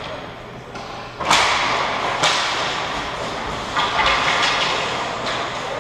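Ice hockey play in front of the net: sharp knocks of sticks and puck on the ice, the loudest about a second in, with skates scraping, all echoing in the rink.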